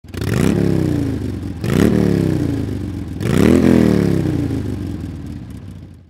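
Motorcycle engine revved three times. Each rev climbs quickly in pitch and then winds down slowly, and the sound fades out near the end.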